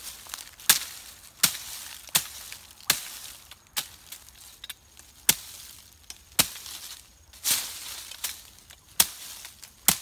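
Repeated chopping strikes of a hand tool's blade into brush and leaf-covered forest floor while a trail is cut. The sharp hits come about once every 0.7 seconds, with a short pause midway.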